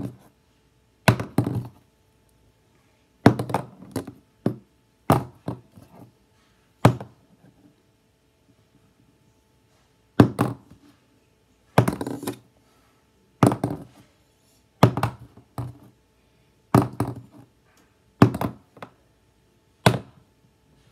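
A plastic Sharpie highlighter being flipped and landing on a hard surface about a dozen times. Most landings are a knock followed by a few quick clattering bounces as it topples. The last, near the end, is a single knock as it lands upright.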